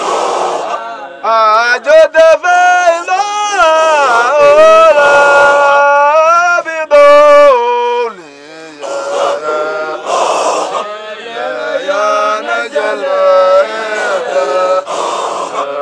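Men chanting a Sufi Qadiriyya dhikr: one voice at a time holds long, bending notes in a melodic chant.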